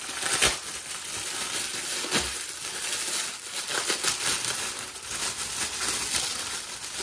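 Gold foil wrapper of a spiral ham crinkling and crackling as it is pulled open by hand, with louder crunches about half a second in and again about two seconds in.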